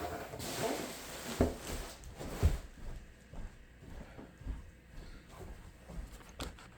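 Rustling of packaging as a surfboard is unwrapped and handled, with a few dull knocks.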